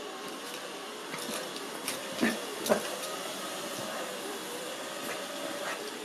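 Ecovacs Deebot robot vacuum running on carpet, a steady motor whirr with hiss. Two short, sharp, louder sounds come about half a second apart a little over two seconds in.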